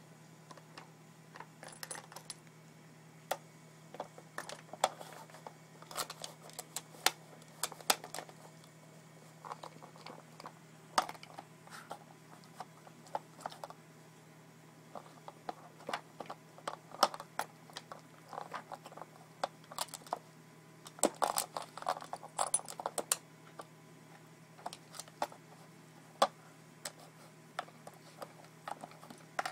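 Dog nosing and pushing at an Aikiou plastic puzzle feeder: irregular clicks and clatter of the hard plastic parts and treats rattling inside, with a busier flurry of clacks a little past the middle.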